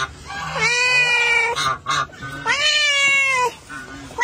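Orange tabby cat giving two long meows about a second apart. Each meow rises in pitch at the start and is held for about a second.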